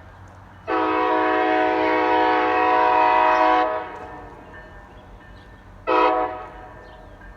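Diesel locomotive air horn sounding a chord: one long blast of about three seconds, then a short blast about two seconds later.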